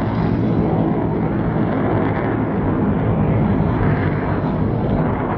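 Jet Waco biplane in aerobatic flight, its Pratt & Whitney R-985 radial and CJ-610 jet engine running together as one steady, loud engine noise.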